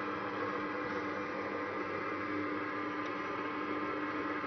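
Electric stand mixer's motor running steadily as it kneads dough in its steel bowl: an even mechanical hum.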